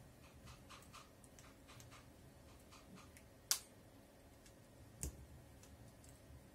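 Light ticks and clicks of a small screwdriver working the screws of a chainsaw carburettor's lower (fuel pump) cover as it is taken off. There is a sharp click about three and a half seconds in and another about five seconds in.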